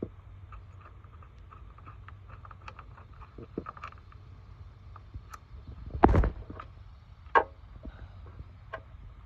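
Hands working loose parts on a car's thermostat housing in the engine bay: scattered small clicks and taps of metal and plastic, with a louder knock about six seconds in and another near seven and a half seconds, over a steady low hum.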